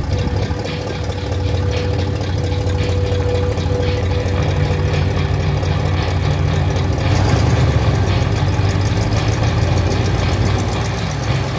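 Freshly rebuilt Ford 360 FE V8 engine running steadily with a low rumble.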